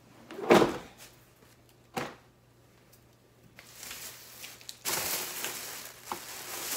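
A thump about half a second in and a lighter knock near two seconds, then from about five seconds in a thin plastic shopping bag rustling and crinkling as it is handled.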